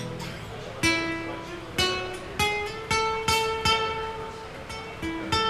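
Acoustic guitar playing an instrumental break: single plucked notes ringing out one after another, about one to two a second, in a slow melody.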